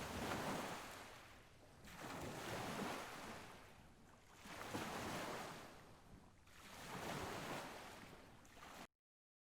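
Waves washing in, four faint swells of rushing water about two and a half seconds apart; the sound cuts off suddenly near the end.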